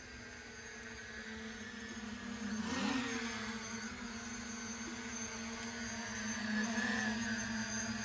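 Parrot Anafi Ai quadcopter drone's propellers humming as it comes down from height, growing louder about three seconds in, with a pitch that wavers as the motors adjust.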